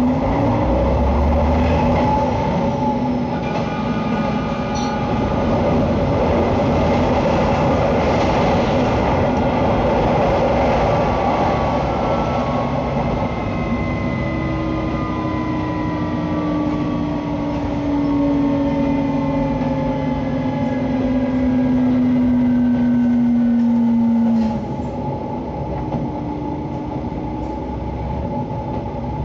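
JR West KiHa 120 single-car diesel railcar running along the line: engine and running-gear noise with several engine tones slowly sinking in pitch. About 24 seconds in the engine tones cut off and the sound drops to quieter rolling noise, as the power is shut off and the railcar coasts.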